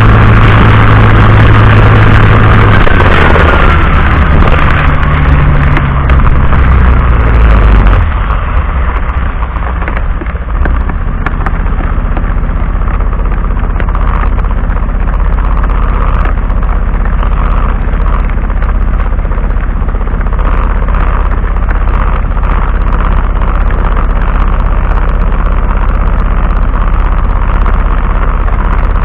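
Car driving in heavy rain, picked up inside by a dashcam: a steady low engine and road rumble with a hiss of rain and water spray. It is loudest in the first eight seconds, with a falling tone a few seconds in, then settles a little quieter.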